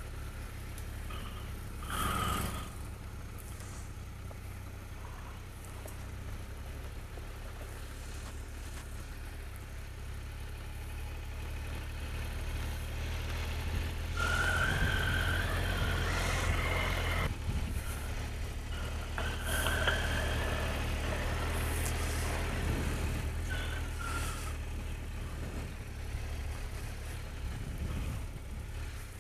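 Triumph Tiger 1200 motorcycle engine running at low speed in a steady low drone as the bike rolls slowly along. It gets louder for a few seconds around the middle, with a rising whine over the drone.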